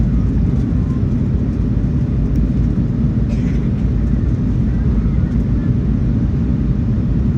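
Steady low rumble of an Airbus A319-100 jet in motion, engine and airflow noise with a faint steady hum above it.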